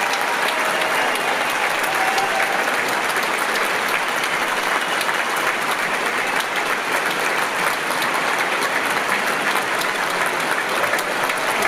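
Large concert audience applauding steadily after a choral performance, a dense even clapping with a few faint calls from the crowd near the start.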